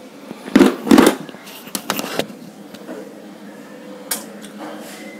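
Plastic panel-indicator lamps and other plastic switchgear parts being handled and set down, knocking and clattering against one another. There are two louder knocks in the first second, a quick run of clicks about two seconds in, and a single click about four seconds in.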